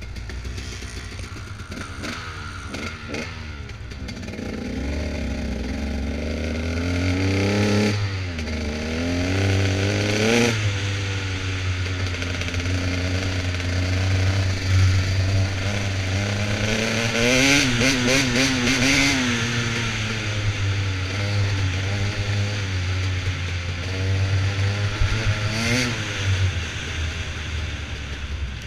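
Dirt bike engine running under way, the revs climbing and dropping several times as it accelerates and backs off, with sharp rev climbs about eight and ten seconds in and again near the end.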